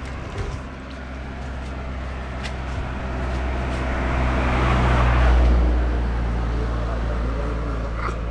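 A motor vehicle passing close by: its engine and tyre noise swell to a peak about five seconds in, then fade away.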